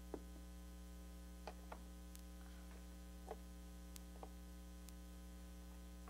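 Steady low electrical mains hum with a handful of faint, scattered light clicks.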